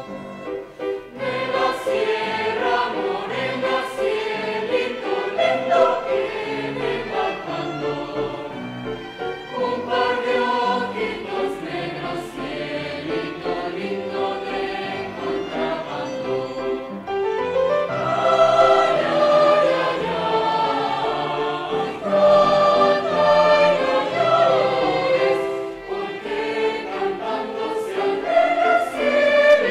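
A choir singing, many voices together in sustained phrases, with a brief lull about halfway through before a rising phrase.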